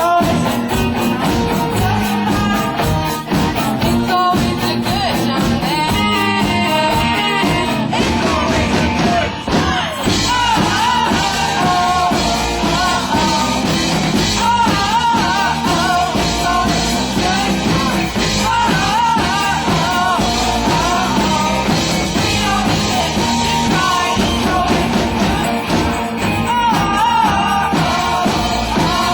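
Rock song with a sung vocal line over a steady beat, changing texture about nine seconds in.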